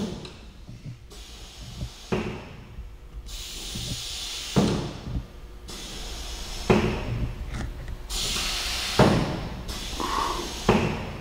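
Ritter R875 SP pneumatic drawer box clamp in use: a series of about six thuds spread over the stretch, with bursts of compressed-air hiss between them.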